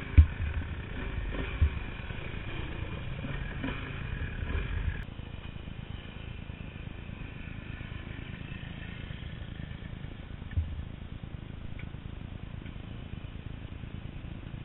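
Dirt bike engine running at low speed on a rough dirt trail, its note dropping about five seconds in, with a low rumble and a few sharp thumps.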